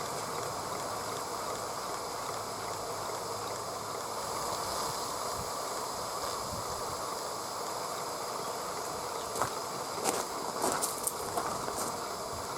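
Aster West Country Gauge 1 live steam locomotive in steam: a steady hiss, with a few sharp clicks near the end.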